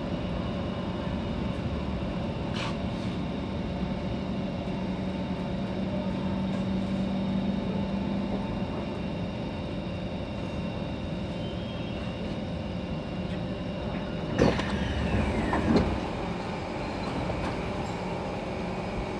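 SMRT C151 train coming to a stop at a platform, its low motor hum fading out about eight seconds in. About fourteen seconds in the passenger sliding doors open with a clunk, a falling sliding sound and a second knock.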